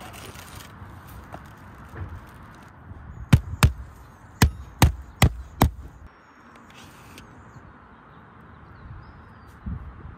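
Six sharp hammer blows: two quick ones, then four evenly spaced strikes, a claw hammer driving down a low-profile metal conduit flashing on an asphalt-shingle roof.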